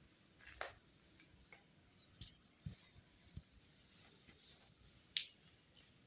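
Faint handling noise: three sharp clicks, one near the start, one about two seconds in and one about five seconds in, with a soft scuffing rustle between about three and five seconds.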